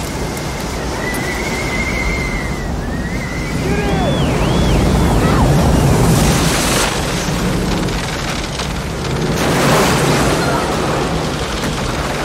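Tornado sound effects from a film mix: a dense, steady rush of storm wind, with shrill wails gliding up and down from about one to five seconds in, and louder surges of wind and debris about seven and ten seconds in.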